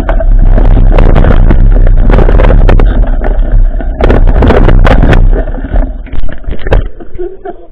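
Wind buffeting a bike-mounted camera's microphone, with the mountain bike clattering and knocking over a rough dirt track. It is loud and distorted at first, then fades from about five seconds in as the bike slows, leaving a few lighter knocks.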